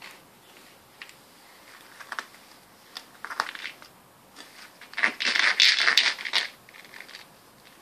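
A ferret scrabbling about inside a fabric slipper, its claws scratching and rustling against the lining in short spells, loudest for a second or so just past the middle.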